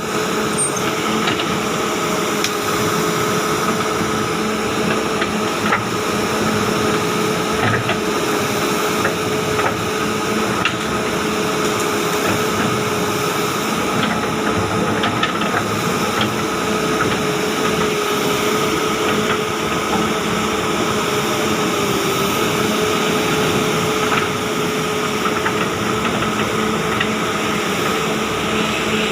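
Kobelco SK200 excavator's diesel engine running steadily, with a constant whine over the engine noise and a few faint clicks.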